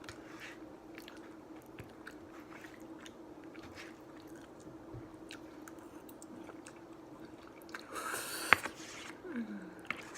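Close-up chewing and wet mouth clicks of someone eating shrimp Alfredo pasta, over a steady low hum. About eight seconds in there is a louder rustling burst with one sharp click.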